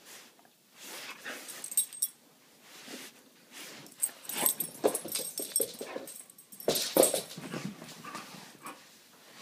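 Dog making play noises while mouthing a person's hand, in irregular short bursts, loudest about five seconds in and again around seven seconds.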